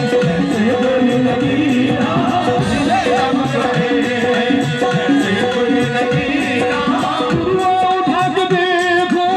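Live qawwali music: harmonium holding a steady melody over tabla strokes, with singing that swells into long, wavering notes near the end.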